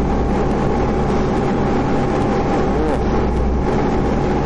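Steady engine noise: an unbroken low rumble with a faint constant hum over it.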